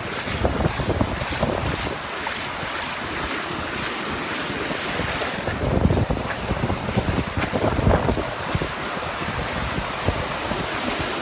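Ocean surf washing and foaming in the shallows, with wind buffeting the phone's microphone in irregular gusts.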